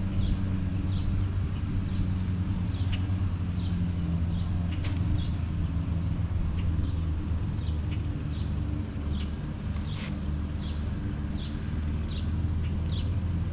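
A steady low mechanical drone, like an engine or motor running, with a bird repeating short high falling chirps about once or twice a second and a few faint clicks.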